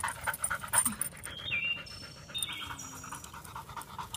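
A dog panting rapidly, about four breaths a second, with a few short high-pitched squeaks around the middle.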